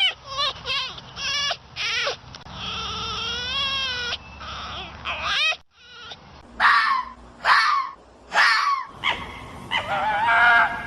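A series of animal calls: short pitched cries, one long wavering call a couple of seconds in, then three short falling cries and another wavering call near the end.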